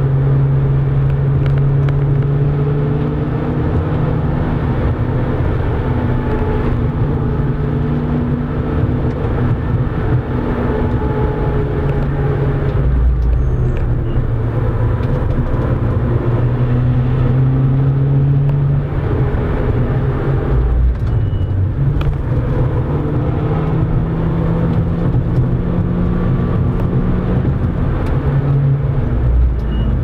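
A 2012 Volkswagen Golf R's turbocharged 2.0-litre four-cylinder heard from inside the cabin while driving. Its engine note rises and falls with throttle and speed over steady road and tyre noise, with a few short low thumps.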